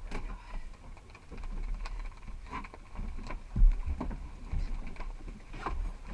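Knocks and taps on a small boat over a steady low rumble, the loudest a heavy thump about three and a half seconds in.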